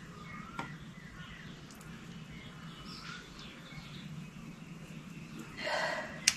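Birds chirping faintly in the background, with a short scrape and one sharp click near the end.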